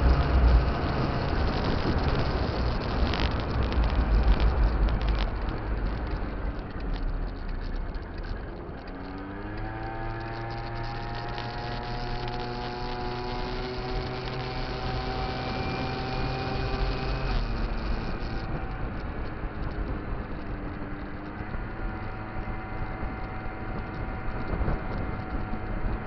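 Kymco Cobra (Top Boy) scooter's two-stroke engine running under way, with a heavy low wind rumble on the microphone at first. About nine seconds in, the engine note climbs and then holds steady for several seconds before dropping back.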